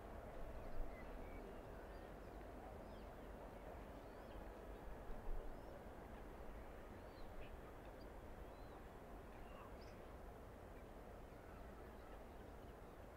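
Faint wetland ambience: a steady low background rumble with scattered short bird chirps and calls, two of them a little louder, about a second in and about five seconds in.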